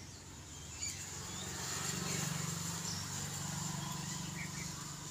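Outdoor ambience: a steady low motor-like hum swells about two seconds in and eases off, under a faint high insect buzz and a few soft bird chirps.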